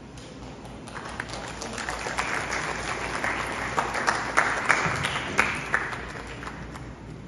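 Audience applauding: the clapping builds about a second in, is loudest past the middle, and dies away near the end.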